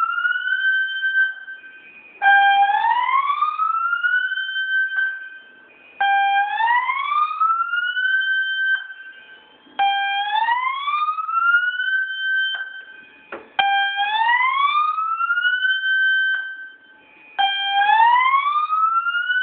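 Building fire alarm evacuation tone: a loud whoop that starts low, climbs to about twice its starting pitch over roughly two seconds, holds briefly and cuts off. It repeats about every four seconds.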